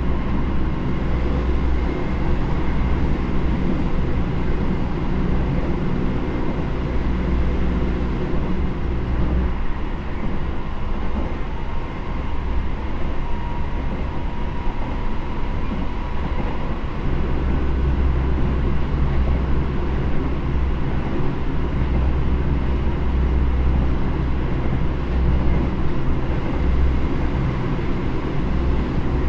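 Interior running noise of a Seibu 9000 series electric train fitted with Hitachi IGBT inverter drive, travelling at speed between stations. Wheels on rail give a steady rumble, with faint whining tones over it. The low rumble eases for several seconds about a third of the way in, then returns.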